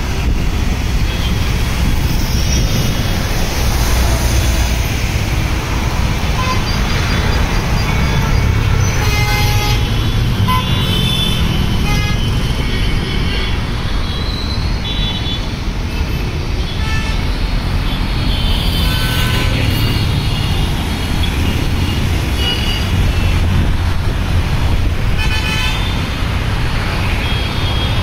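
Heavy, congested road traffic on wet roads: a steady rumble of engines and tyres, with car, bus and truck horns honking again and again.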